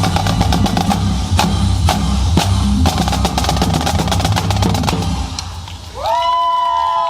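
Drum music: fast rapid snare-like strokes over a steady bass beat. It drops away about five and a half seconds in, and a long held vocal note starts near the end.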